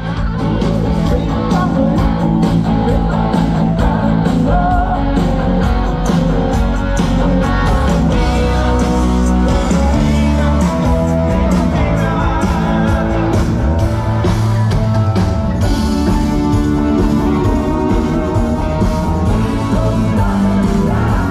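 A live band playing pop-rock through a concert PA, with guitar, bass and drums and a singing voice.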